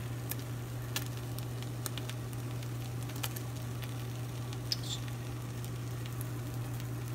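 Eggs frying in a nonstick pan: a steady low sizzle with scattered crackles and pops, over a steady low hum.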